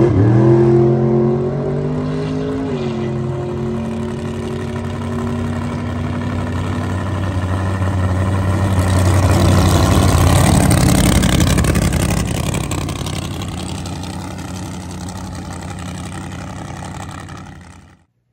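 Boosted Camaro drag car's engine running at low speed as the car drives toward and past close by, loudest as it passes and then fading away. The engine pitch drops over the first few seconds and then holds steady.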